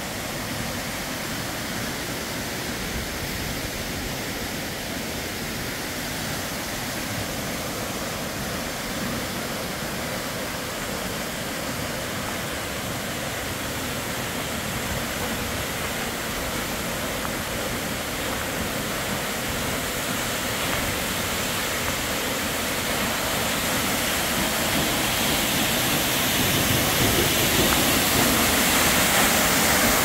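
Waterfall, Giessbach Falls: a steady rush of falling water that grows louder over the last third.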